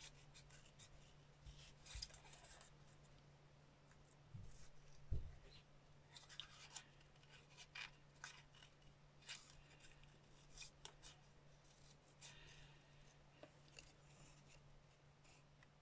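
Small craft scissors snipping around a stamped image on card: faint, irregular snips, with one louder knock about five seconds in.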